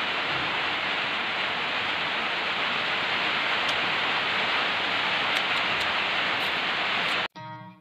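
Steady, even hiss of rain falling. It cuts off suddenly near the end as guitar music starts.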